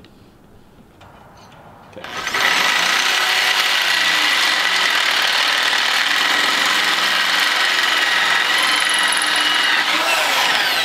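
Cordless drill spinning the hole saw of a Rogue Fab tubing notcher as it cuts into a metal tube, a loud, steady grinding whir with a constant high tone, starting about two seconds in.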